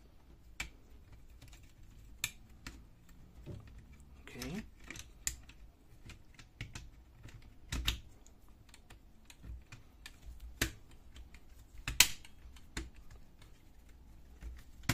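Plastic parts of a laser printer fuser's end cover and gear assembly clicking and knocking as they are handled and fitted together: scattered sharp clicks at irregular intervals, the loudest about twelve seconds in.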